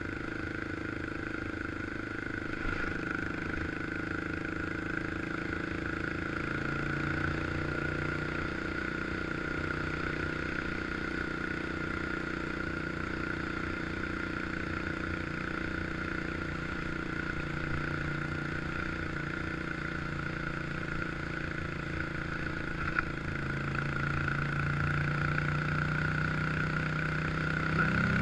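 1986 Honda FourTrax 350 ATV's single-cylinder four-stroke engine running steadily while riding. Its pitch rises a few times as the throttle opens, and it gets louder near the end.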